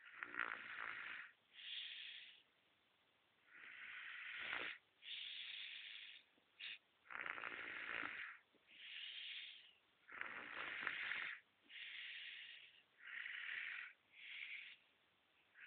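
A sleeping baby snoring: a regular cycle of hissy, snuffly breaths in and out, a louder, deeper breath alternating with a softer, higher one, about one breath cycle every three seconds.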